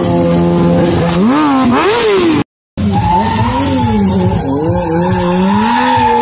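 Stunt motorcycle engine held at high revs, its pitch swinging up and down as the rider spins the bike in smoking circles, with tyre squeal over it. The sound cuts out completely for a moment about two and a half seconds in.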